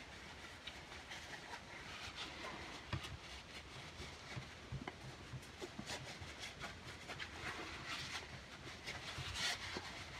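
Faint rubbing and scrubbing with small clicks: the outside of a stainless steel derringer barrel being cleaned by hand, a little louder near the end.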